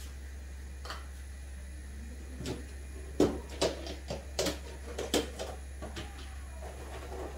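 Thick pumpkin soup simmering in a pot, giving a run of irregular soft plops and pops as bubbles burst through the surface, over a steady low hum.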